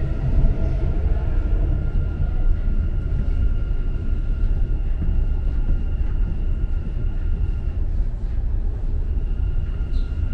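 Dubai Metro train running on its elevated track, heard from inside the carriage: a steady low rumble with a faint steady high whine that drops out briefly near the end.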